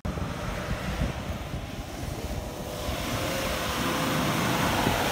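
Ford Endeavour SUV's diesel engine working hard as it climbs through soft dune sand toward the microphone, a continuous roar that grows steadily louder.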